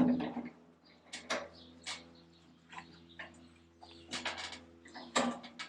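Irregular metallic knocks and clicks, about half a dozen, the loudest at the very start, over a steady low electrical hum, as a MIG welder's earth clamp is refitted on the steel to get a better earth connection.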